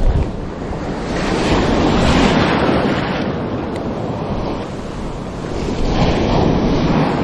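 Baltic Sea surf breaking on the shore, swelling and easing twice, with wind buffeting the camera microphone. It is heard muffled through a cheap, rain-soaked windscreen, and there is a low bump on the microphone right at the start.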